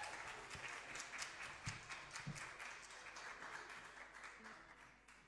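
Small audience applauding at the end of a song, the clapping thinning out and dying away toward the end.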